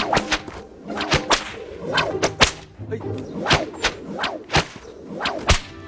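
A long whip cracked over and over in quick runs of two or three, about fifteen sharp cracks in all.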